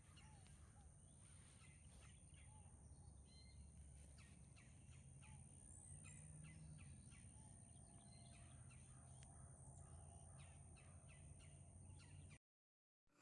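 Near silence: faint outdoor garden ambience with scattered short bird chirps over a steady high thin tone and a low rumble. It cuts off to silence near the end.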